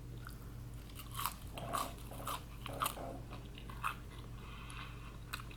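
Scattered soft clicks and wet smacks of food and sauce being handled close to the microphone, about one every half second to a second, over a faint steady low hum.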